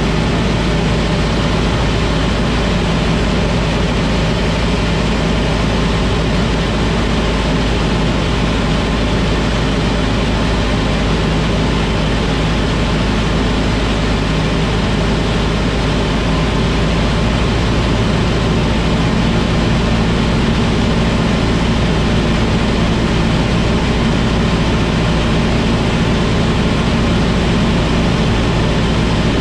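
Piston engine and propeller of a small single-engine airplane droning steadily in flight, with wind rushing past, heard from the cockpit.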